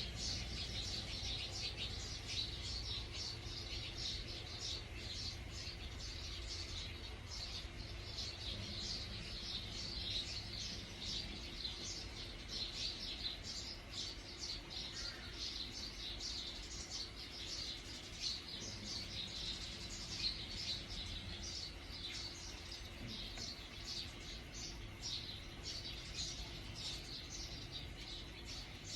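Small birds chirping densely and without pause, over a steady low rumble.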